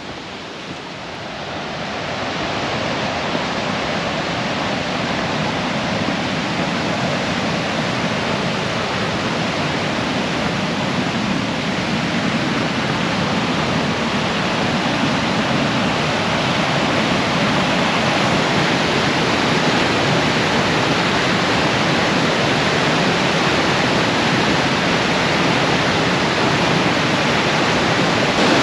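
Whitewater river rapids rushing over rock ledges, a steady roar that swells over the first couple of seconds and keeps growing slowly louder.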